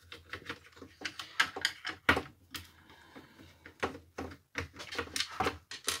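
Irregular small clicks, taps and scrapes of a screwdriver and fingers working at the plastic cable clamp inside an electric fan's housing to take out the power cord, with a few sharper knocks.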